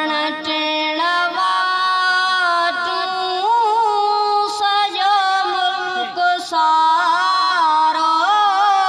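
A boy's high voice singing a Sindhi naat through a microphone and PA, holding long drawn-out notes that step between pitches with small ornamented turns; one voice with no instrument heard.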